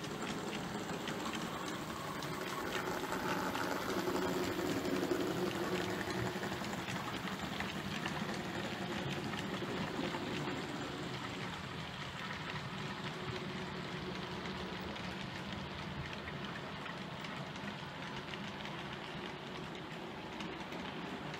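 Model freight train of container wagons rolling along the track: a steady rattle of small wheels on rail with a fine patter of clicks, loudest about four to six seconds in and then easing off slightly as the rake runs by.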